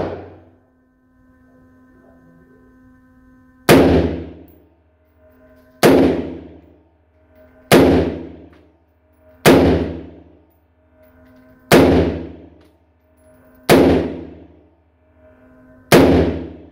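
AR-15 rifle fired in single shots, eight of them about two seconds apart, each shot ringing out and echoing in an indoor range booth.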